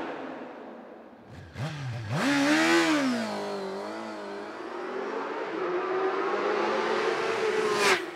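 Sportbike engines on a mountain road: a fading engine, then about a second and a half in an engine revs up and down in quick swells, and from about five seconds a bike's engine climbs in pitch and grows louder before cutting off abruptly near the end.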